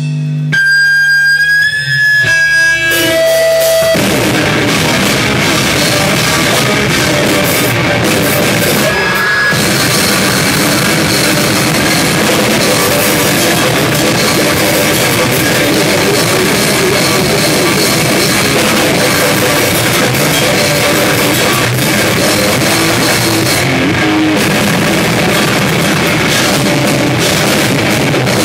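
A live rock band playing loud, with distorted electric guitar and drum kit. The first few seconds hold a few sustained guitar tones before the full band comes in about four seconds in and plays steadily.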